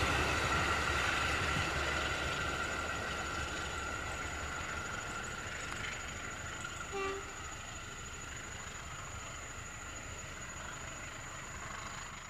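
A passing train moving away, its rumble and wheel-on-rail noise fading steadily, with a short toot about seven seconds in.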